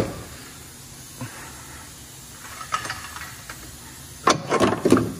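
Metal scraping and knocking as a brake caliper is worked loose and shifted against its rotor and bracket. There are a few light taps, then a louder cluster of scrapes and clunks near the end.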